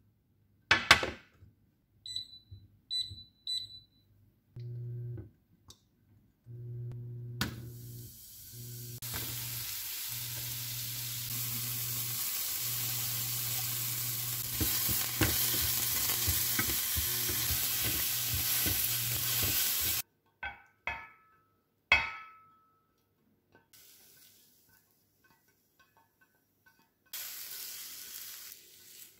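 A frying pan is set down on an induction cooktop with a clack, the cooktop beeps three times, and its low hum starts; then sliced mushrooms sizzle in the pan, the sizzle building and cutting off suddenly about twenty seconds in. A few clicks follow, and near the end fried vegetables are scraped out of the pan into a dish.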